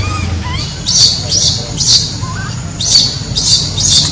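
A crying baby monkey giving short, shrill squeals, about six of them, spaced half a second to a second apart.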